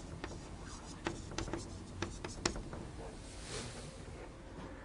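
Writing on a board: scattered light taps and short strokes of the writing tool, with a longer scratchy stroke about three and a half seconds in.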